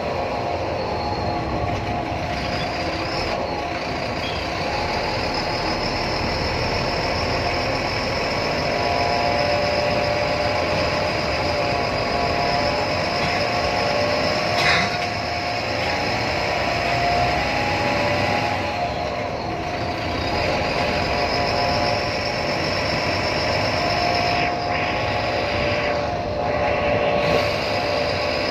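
Bus running on the road: steady engine and road noise with a wavering whine, and a single sharp knock about halfway through.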